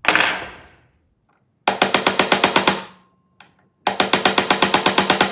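Hammer tapping small nails down through a rubber support into a wooden table: one sharp ringing strike, then two quick runs of light taps, about ten a second.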